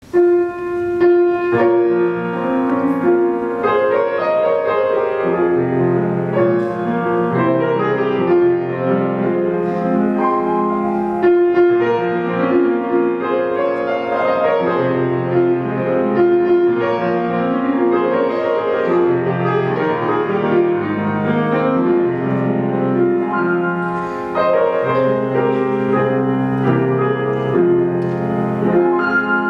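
Grand piano playing the introduction to a tango romance, with a repeating bass line under sustained chords and melody.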